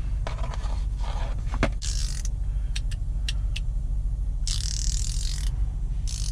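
Hand ratchets being handled: a few sharp clicks and short rasping bursts, the longest lasting about a second around five seconds in. A steady low rumble lies underneath.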